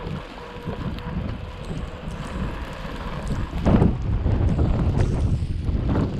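Strong wind buffeting the microphone in a snowstorm, a low rumble that gusts louder about halfway through.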